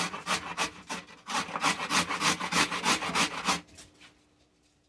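A carrot grated on the coarse side of a stainless steel box grater: quick rasping strokes, about four a second, with a short pause about a second in. The grating stops about three and a half seconds in.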